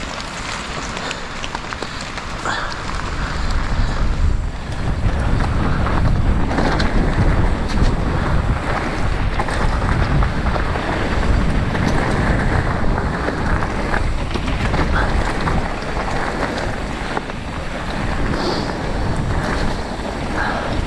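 Wind rushing over the microphone and the rumble of a mountain bike rolling down a dirt trail, growing louder about four seconds in.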